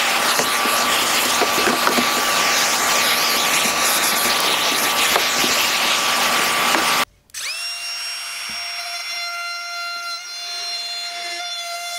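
A power tool running steadily and loudly, cutting off abruptly about seven seconds in. Background music with sustained, sliding notes follows.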